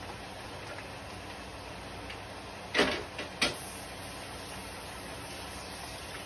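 Three sudden knocks or clatters within well under a second, about three seconds in: a loud one, a smaller one, then another loud one, over a steady faint hiss.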